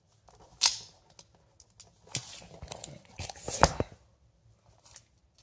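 Comic books being handled and set down: a few sharp rustling noises with softer rustle between, the loudest about three and a half seconds in.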